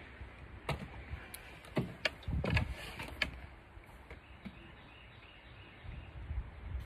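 Handling noise: a handful of sharp clicks and knocks in the first half, with a brief low rumble about two and a half seconds in, then a quiet steady background.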